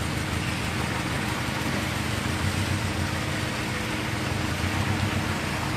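Street traffic in the rain: car engines running close by under a steady hiss, with water on the road.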